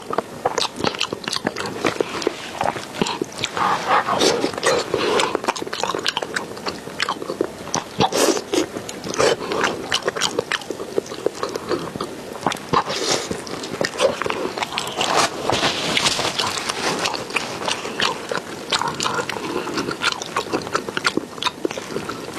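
Close-miked wet chewing, biting and lip-smacking on a braised beef knuckle with tendon: a dense, irregular run of clicks and smacks.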